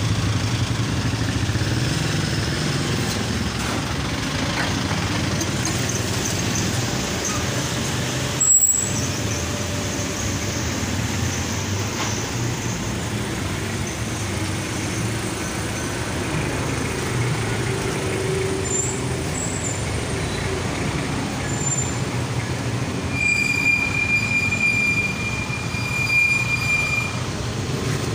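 Steady background vehicle noise, with one sharp knock about eight and a half seconds in and a thin, steady high tone for a few seconds near the end.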